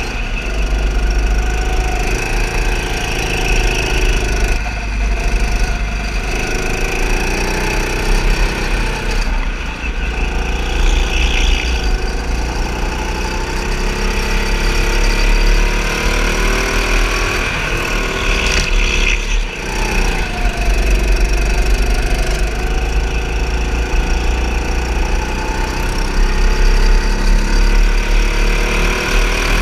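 Go-kart motor running at speed, heard from the driver's seat. Its pitch rises and falls over several seconds as the kart accelerates along the straights and slows into the corners.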